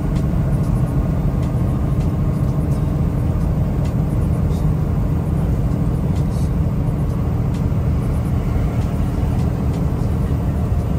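Semi truck's diesel engine and road noise heard inside the cab while cruising at highway speed: a steady low rumble.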